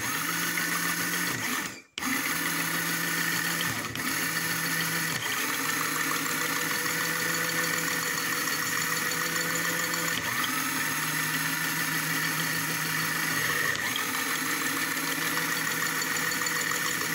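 Small Lego Technic electric motor driving a geared whisk, a steady whine; it cuts out for a moment about two seconds in and starts again as it is switched between forward and reverse.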